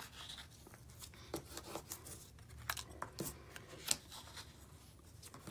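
Cardstock being folded along its score lines and creased with a crease tool: faint, scattered short scrapes and clicks of stiff paper being handled.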